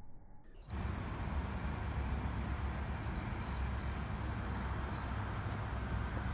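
Insects chirping outdoors: short high chirps repeating about twice a second over a steady high-pitched insect drone, with a low rumble underneath. The sound cuts in abruptly about a second in.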